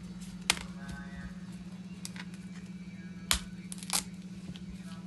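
Cauliflower being cut with a knife: sharp cracks as the blade goes through the stalks and hits the board. There is one crack about half a second in and two close together past three seconds, over soft background music and a steady low hum.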